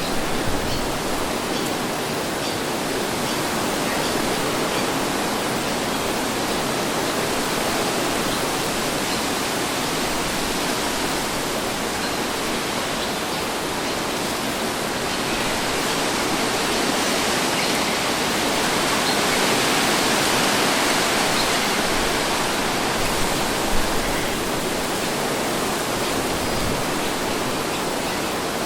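Steady wind blowing: an even rushing noise that swells a little over the middle of the stretch and eases back.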